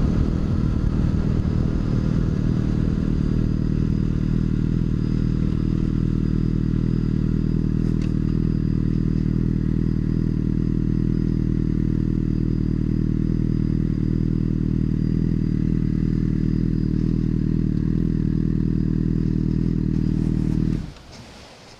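Sport bike's inline-four engine running steadily at a constant low speed, then switched off and cutting out suddenly near the end.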